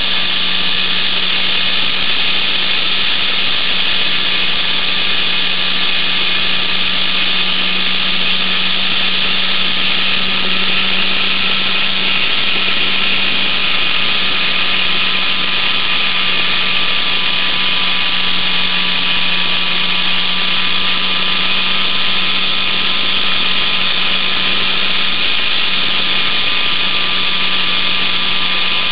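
Electric motor and propeller of a GWS Slow Stick RC plane running steadily in flight, picked up by the camera on board: a constant hum with a high whine over it.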